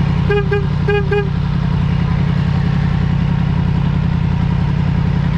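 Motorcycle engine running steadily, with a vehicle horn giving two quick double beeps in the first second and a half.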